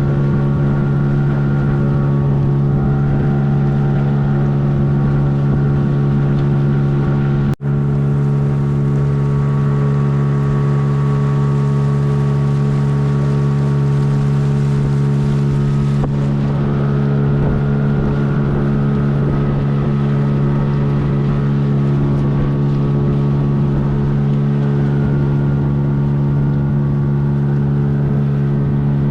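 Boat's outboard motor running at a steady, even speed, with a momentary dropout about seven seconds in.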